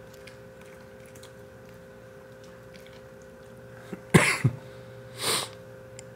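A Welsh corgi sneezes sharply with its nose to the floor while licking up treat crumbs, followed about a second later by a breathy snort. A faint steady hum underneath.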